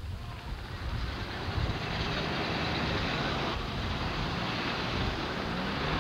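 Cars passing close by one after another on a wet road, their tyres hissing, the hiss swelling about two seconds in as a car nears. A fluttering low rumble of wind on the microphone lies under it.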